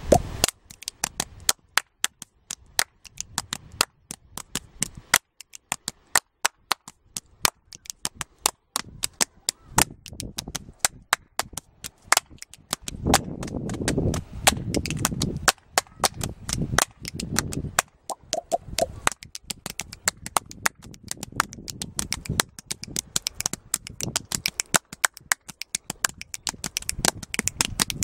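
Samba rhythm played as body percussion by two performers: a fast, busy run of sharp hand claps and slaps on the body.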